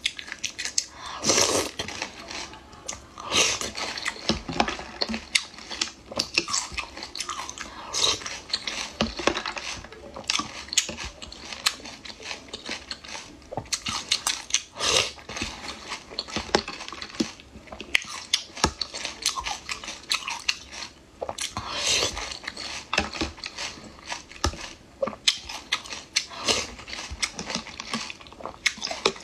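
Close-miked eating of pickled mud snails: irregular sucking, biting and crunching, with small clicks of a metal spoon against the jar.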